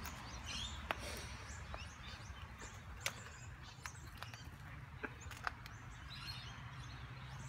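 Faint outdoor ambience: birds chirping over a steady low rumble, with a few scattered sharp clicks.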